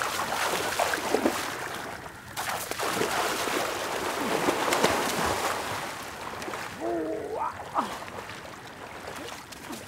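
Splashing and sloshing of feet wading through shallow water, with irregular splashes throughout and a brief wavering vocal sound about seven seconds in.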